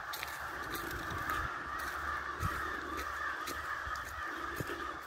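Many crows cawing at once, their calls overlapping into a steady, unbroken din.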